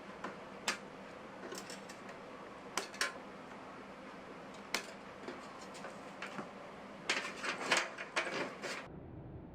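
Irregular sharp clicks and light knocks of small hard objects being handled, over a steady faint hum. Near the end comes a denser clatter that cuts off suddenly.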